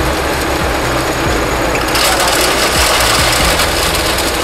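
A hammer mill with a cyclone blower, driven by a 7.5 HP electric motor, running loud and steady with a low hum. About two seconds in, a harsher, louder grinding rush comes in as the hopper gate is opened and stone starts feeding into the hammers.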